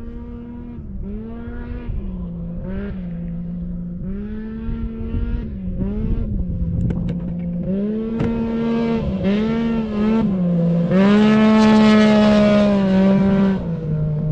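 Desert race truck's engine running hard at high revs, its pitch dropping and climbing back several times. It grows steadily louder as the truck comes closer and is loudest near the end.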